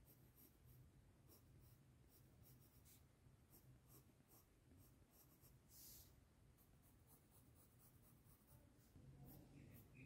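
Faint, light scratching with small clicks, a slightly louder scrape about six seconds in, over a low steady hum.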